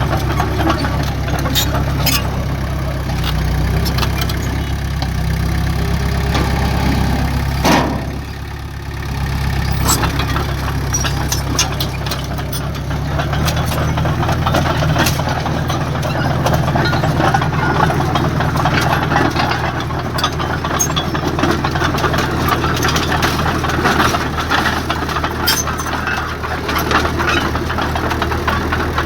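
Heavy diesel engine of earthmoving machinery running steadily, with scattered clanks and knocks over it. The engine dips briefly about eight seconds in, and its note shifts a few seconds later.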